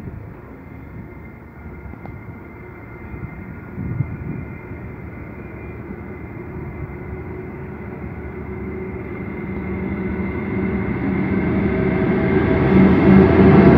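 Pacific National freight locomotive hauling a container train on approach, its engine hum growing steadily louder as it draws near and reaches the platform near the end.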